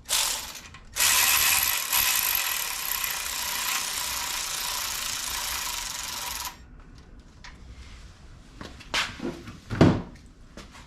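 Hand ratchet wrench clicking, in two short bursts and then a long steady run of rapid clicks for about five and a half seconds as it is worked on the engine's timing components. A few separate metallic knocks follow near the end, the loudest just before it ends.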